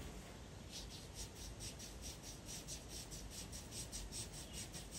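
Pencil tracing over a paper printout: faint, quick scratching strokes in an even rhythm, several a second.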